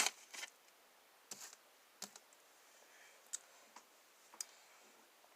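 Sticky homemade slime being pulled and pressed by hand, giving a few faint, scattered clicks as it sticks and tears off the fingers.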